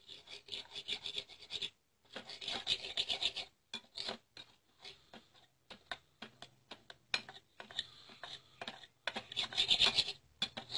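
A spoon scraping and stirring a turmeric and milk mixture in a small bowl: three short scratchy bursts with many light clicks between them.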